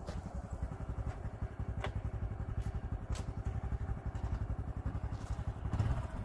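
Honda Super Cub C125's 125 cc air-cooled single-cylinder four-stroke engine idling, with an even, rapid low pulse from its firing strokes.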